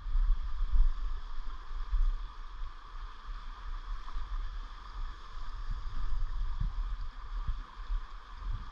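Steady rush of river water running over rocks, with an uneven low rumble on the microphone that rises and falls.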